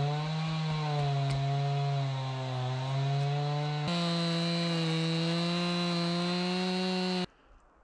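Chainsaw mounted in a Granberg chainsaw mill, running under load as it rips a log lengthwise into rough lumber. A steady engine drone steps up slightly in pitch about four seconds in, then cuts off abruptly just before the end.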